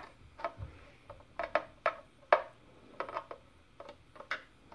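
Irregular clicks and ticks of a small screwdriver working a screw out of a 3D-printed plastic blaster housing, with light handling of the plastic part.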